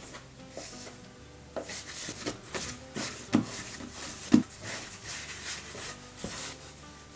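Hands shaping yeast dough into balls on a floured wooden board: soft rubbing and slapping of the dough, with a few thumps on the board, two of them louder in the middle. Quiet background music plays underneath.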